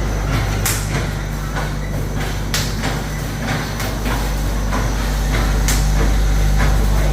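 An automatic round wire-cage welding machine running: a steady electrical hum with a few sharp clacks at irregular gaps.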